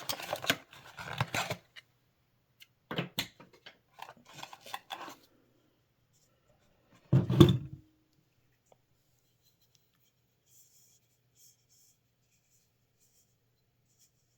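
Bulb packaging being cut and handled: bursts of scratchy clicks and rustles, then one loud knock about seven seconds in as something is set down hard.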